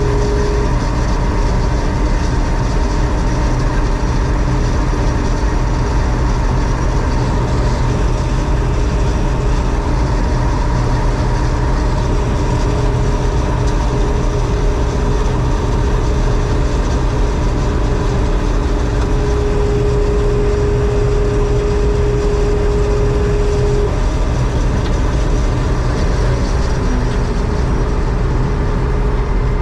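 John Deere 4400 combine running steadily while harvesting soybeans: an even, unbroken low rumble with a faint steady whine above it.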